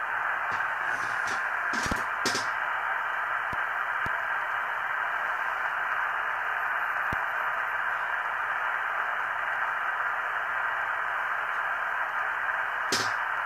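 Steady hiss from an Icom IC-R71A receiver in upper-sideband mode on the 11-metre band: the narrow-band noise of an open channel between transmissions. A few brief clicks come about two seconds in and again near the end.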